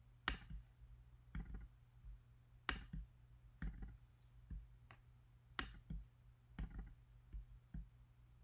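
Computer mouse clicking, sharp single clicks about once a second, over a faint steady low hum.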